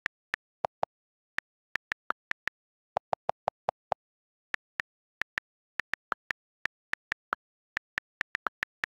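iPad on-screen keyboard key clicks as text is typed, sharp single clicks at an uneven typing pace with complete silence between them. A quick run of five deeper clicks comes about three seconds in.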